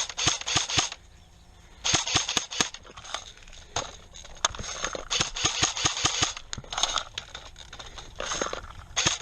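Airsoft electric rifle (AEG) firing BBs in several bursts of rapid clicks, each burst lasting about half a second to a second and a half, with short pauses between them: cover fire.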